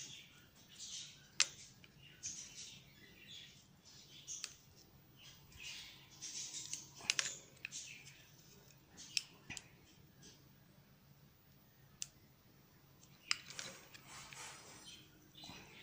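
A cutter blade shaving the wood off a 6B wooden pencil: short scraping strokes one after another, with a few sharp clicks, and a quieter stretch in the second half.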